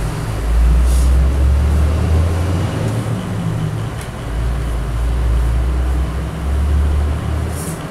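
Hot-air rework station blowing through its nozzle onto a phone circuit board to heat the display IC: a loud, low rush of air that swells and eases.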